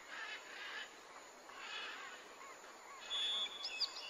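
Birds calling and chirping: scattered short chirps, a brief steady high whistle about three seconds in, then a few quick hooked notes near the end.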